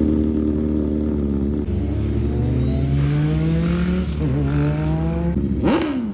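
KTM motorcycle engine held at a steady note, then accelerating with its pitch climbing, dipping briefly about four seconds in and climbing again. Near the end a sharp rev blip jumps up and falls straight back.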